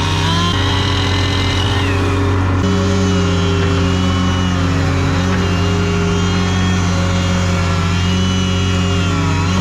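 Skid steer engine running steadily at working throttle, with a higher whine that rises and falls in pitch as the machine is driven and its hydraulics are worked.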